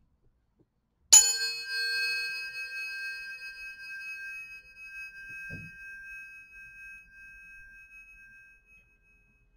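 Handheld metal tuning forks struck once: a sharp clang, then two steady ringing tones that slowly fade out over about eight seconds.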